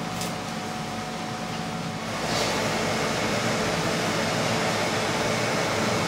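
Steady hum and hiss of fans or air conditioning in a lab room, stepping up louder about two seconds in and holding steady after that.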